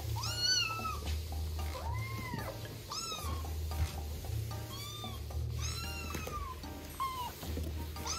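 Young kittens mewing again and again, short high cries that rise and fall, about seven in all, over background music.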